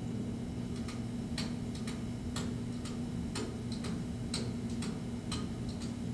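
Sharp ticks at an even pace, about two a second, over a low steady hum.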